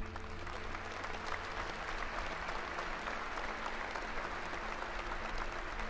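A large crowd clapping steadily, a dense patter of many hands.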